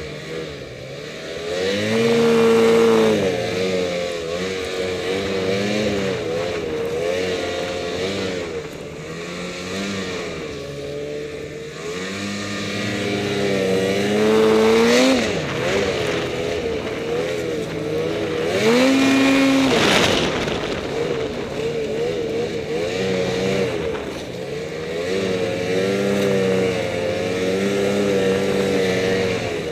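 Ski-Doo Summit X 800R E-TEC two-stroke twin snowmobile engine running under load, its revs rising and falling with the throttle. The revs climb steeply about halfway through and again about two-thirds of the way in.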